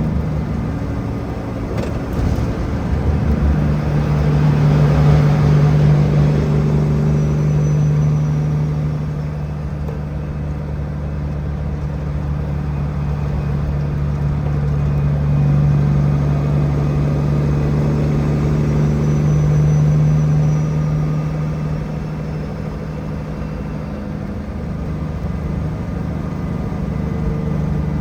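A heavy diesel engine running steadily with a constant low drone, swelling and easing in loudness a few times as it works.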